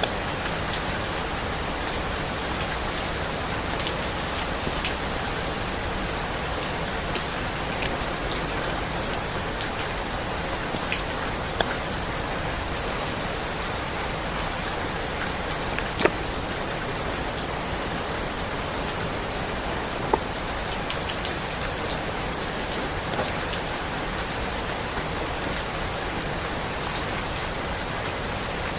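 Steady rainfall, an even hiss dotted with sharp ticks of single drops landing close by, a few of them louder than the rest.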